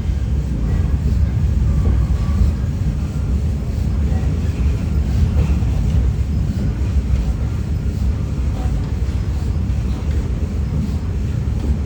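Steady low rumble of the Walt Disney World Railroad's narrow-gauge steam train rolling along the track, heard from on board.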